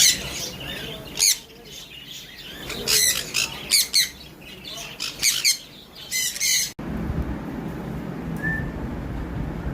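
Pet parrots giving loud, harsh squawks in repeated short bursts. A little under seven seconds in the sound cuts abruptly to a steady low hum with only a faint chirp or two.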